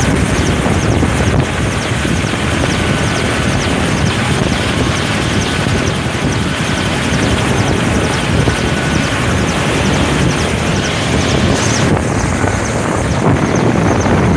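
Mi-8-family transport helicopter running on the ground with its main rotor turning: a loud, steady turbine and rotor noise, its highest hiss dropping somewhat about twelve seconds in.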